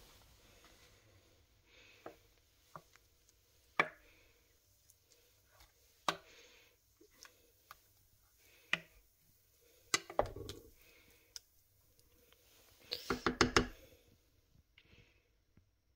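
Wooden spoon stirring chicken in a thick peanut sauce in a slow cooker's ceramic crock, knocking against the pot now and then. About thirteen seconds in there is a quick run of five or six knocks.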